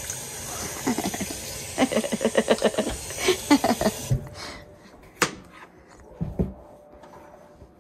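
Kitchen tap running into a stainless steel sink while a cucumber is scrubbed by hand under it, with quick rhythmic rubbing sounds; the water cuts off about four seconds in. A sharp knock follows, then a couple of soft thuds.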